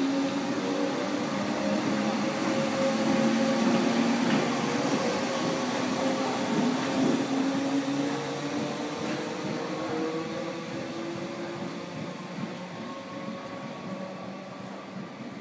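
Southern Class 313 electric multiple unit pulling away, its traction motors whining in several tones that rise slowly as it gathers speed, over the running noise of the wheels on the rails. The sound is loudest a few seconds in, then fades as the train draws off into the distance.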